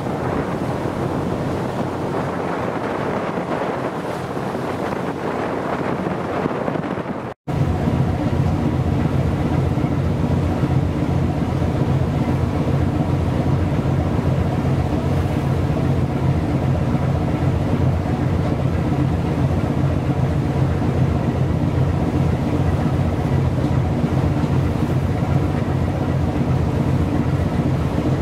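Wind buffeting the microphone over choppy sea for about seven seconds; after a brief cut-out, a steady low engine drone with a constant hum takes over.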